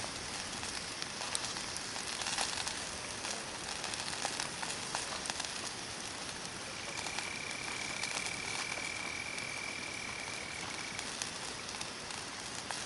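Hardwood campfire burning: a steady hiss with scattered crackles and pops. In the second half a thin, high, steady whistle holds for about four seconds.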